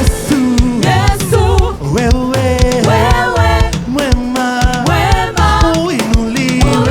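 Gospel praise music with a band and drums and a singing voice.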